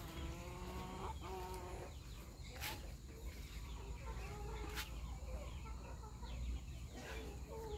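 Backyard poultry clucking softly, mostly in the first two seconds and again near the end, with a couple of sharp clicks in between.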